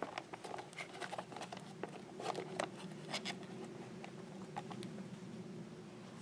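Spoon scraping and stirring inside a foil-lined freeze-dried meal pouch, the pouch crinkling: a run of small clicks and scrapes that thins out after about three and a half seconds.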